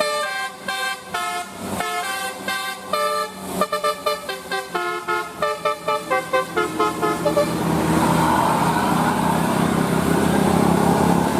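A bus's telolet horn, a multi-tone musical air horn, playing a quick tune of short chord-like notes that get faster toward the end. After about seven and a half seconds the horn stops and a steady rushing noise with a low hum, like a passing bus, takes over.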